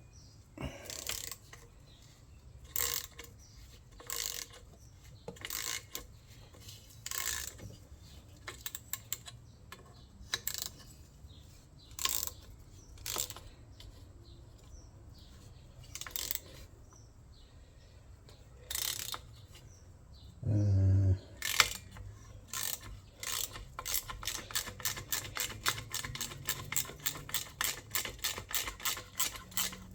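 Socket ratchet wrench undoing the exhaust bolts on a Tecumseh four-stroke lawnmower engine: scattered single clicks and knocks of the tool at first, then steady fast ratcheting, about three or four clicks a second, in the last third. A short low hum comes just before the steady ratcheting.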